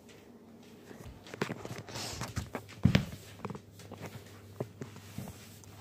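Footsteps and the knocks and rubbing of a hand-held phone being carried about, with one louder thump about three seconds in.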